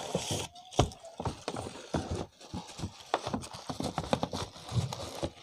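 Quick, irregular knocks, taps and rustles of an item and its packaging being handled and pushed back into its box.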